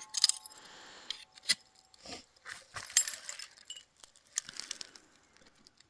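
Dry tinder and small kindling crackling and crunching as it is handled at a fire pit, with irregular sharp clicks and a few short, soft rushing bursts as the first small flame is tended.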